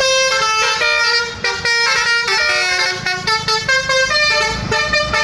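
A bus's 'basuri' musical horn playing a fast tune: loud, held notes that step from pitch to pitch every fraction of a second, several tones sounding together.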